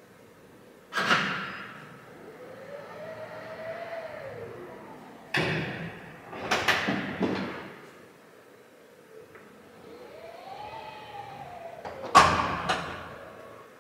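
Electrically powered lid on a Tesla Model Y going through a cycle. A knock is followed by a motor whining up and then down in pitch for a few seconds, then several clunks. A second motor whine follows, and the lid closes with two sharp latching knocks near the end.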